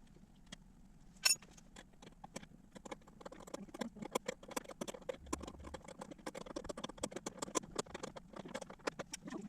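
Irregular clicks, taps and clinks of hand tools and metal hardware being worked while fitting hood struts. One sharp clink comes about a second in, and the tapping grows busier from about three seconds on.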